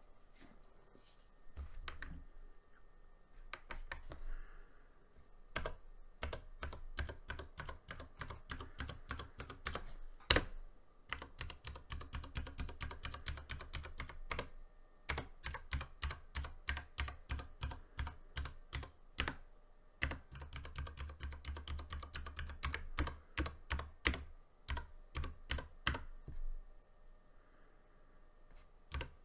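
Keystrokes on a Ducky One 2 Mini mechanical keyboard with Cherry MX Brown switches (tactile, non-clicky), pressed key after key in quick runs separated by short pauses. The keystrokes are fairly quiet, sparse at first and then fast and steady for most of the stretch.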